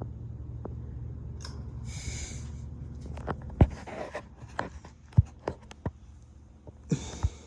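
Steady low hum of a Hunter ceiling fan running, which fades after about two and a half seconds. Rustling, then a string of sharp clicks and knocks of handling close to the microphone, the loudest sounds here.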